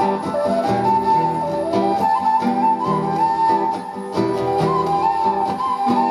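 Music: a wandering flute melody over plucked guitar.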